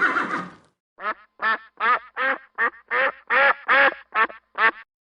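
A duck quacking, about ten quacks in quick succession, starting about a second in. Before that, a noisy recording cuts off.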